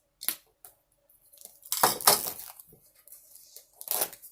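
Diamond painting kit box being opened by hand: a couple of light clicks, then a brief scraping rustle about two seconds in, and another short knock near the end.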